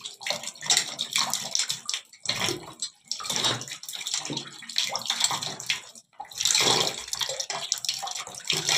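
Tap water running and splashing over an electric water-heater element as it is rinsed and turned by hand, spattering into a plastic bucket in uneven surges.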